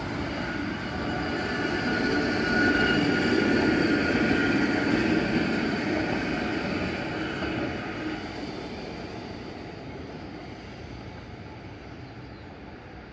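Two-car Randen (Keifuku Electric Railroad) tram running past on street track. Its noise swells to a peak a few seconds in and then fades away, with a steady high whine over the running noise until it draws off.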